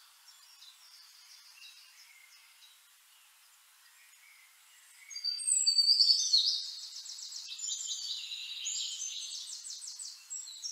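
Birds singing with high chirps, faint at first, then louder from about five seconds in with rapid high trills.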